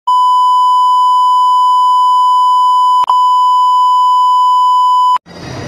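A loud, steady, high-pitched electronic beep tone held for about five seconds, with a brief click about three seconds in, then cut off suddenly.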